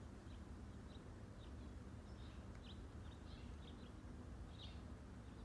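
Quiet outdoor background with a low steady rumble and a handful of faint, short bird chirps scattered through it. Right at the very end a Leshiy 2 air rifle with a 3D-printed baffle fires a single shot.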